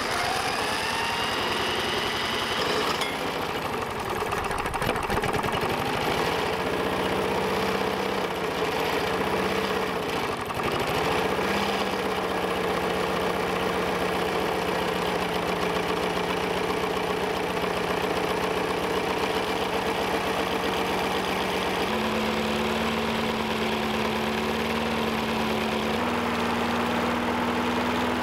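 A cordless drill spins up a walk-behind mower's single-cylinder engine, its whine rising for about three seconds before stopping. The engine then runs on its own steadily on fuel vapour drawn from a bubbler bottle. Its speed wavers briefly around ten seconds in and steps up twice near the end.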